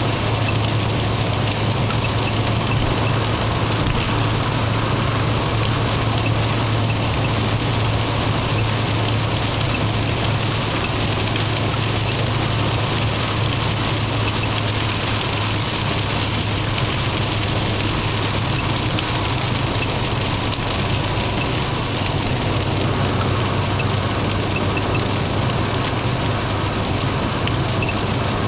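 Steady cabin noise of a car cruising on an expressway, heard from inside the car: a low engine and road drone with an even tyre hiss.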